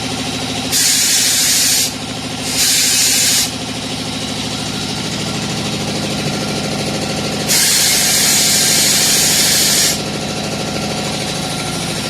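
Compressed air hissing in three blasts, two short ones and then a longer one of about two and a half seconds, as air is shot at a tire being mounted on a tire changer. Under it runs a steady machine drone.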